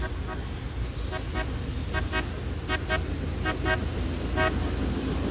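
Air horns giving short toots, mostly in quick pairs about once a second, with one last single toot near the end, over a steady low rumble.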